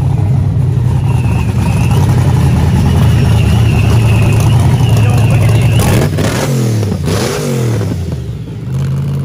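Classic V8 cars leaving at low speed, engines running steadily: a Chevrolet Camaro SS, then a Shelby Cobra-style roadster with side exhausts. About six seconds in, an engine is revved twice in quick succession, each rev rising and falling in pitch.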